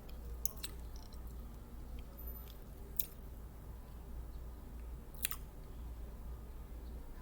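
Close-up chewing and mouth sounds of a person eating ramen, with a few sharp wet clicks about half a second in, at three seconds and just after five seconds, over a steady low hum.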